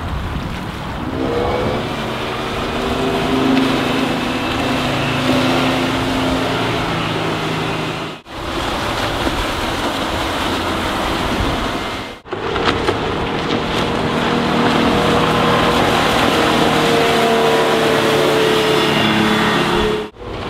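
Mercruiser 4.3L MPI V6 sterndrive engine of a bowrider running at speed, its pitch climbing about a second in as the boat accelerates. The sound breaks off briefly three times as the shots change.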